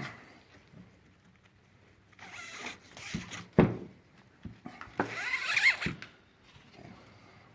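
A rucksack strap pulled through a frame bracket and cinched down: several rasping pulls, the loudest about five seconds in, with a few short knocks against the frame.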